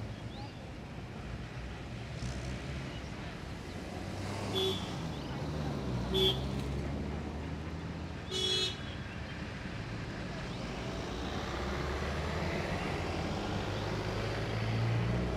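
Highway traffic with a steady engine rumble, and vehicle horns sounding three short honks in the middle, the third a little longer. Toward the end a passing vehicle's rumble grows louder.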